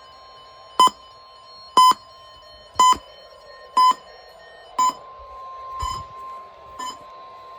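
NOAA Weather Radio's steady warning alarm tone sounding for the weekly test, with a weather radio receiver's alert beeping sharply about once a second over it. The first five beeps are the loudest.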